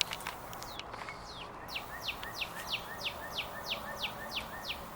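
Songbird singing a fast series of short falling whistled notes, about four a second for some three seconds, over a steady outdoor background hum.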